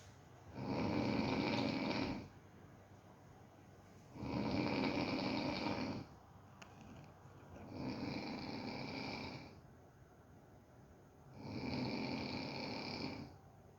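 Dog snoring in its sleep: four long, even snores, one about every three and a half seconds.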